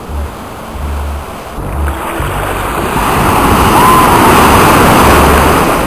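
Surf breaking and rushing up the sand close by, building from about two seconds in to a loud rush through the second half, with wind buffeting the microphone.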